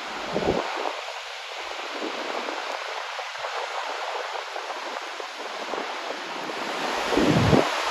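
Dettifoss waterfall rushing with a steady, dense roar of falling water. Wind buffets the microphone twice, about half a second in and again near the end.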